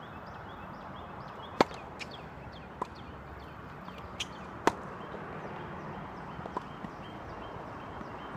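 Tennis rally on a hard court: a series of sharp pops from the ball being struck by rackets and bouncing, the two loudest about a second and a half in and midway through.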